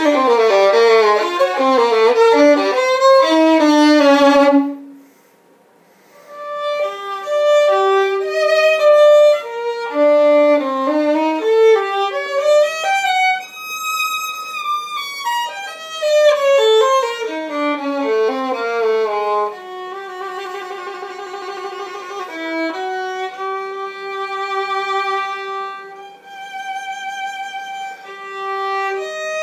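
Violin played with the bow: fast descending runs, a brief pause about five seconds in, then a slow melody of held notes with vibrato, softer in the second half.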